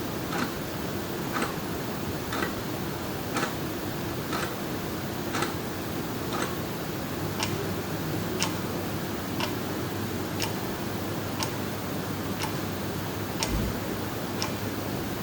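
Clock ticking once a second over steady room noise. About halfway through, a different clock with a thinner, higher tick takes over. A brief low bump comes near the end.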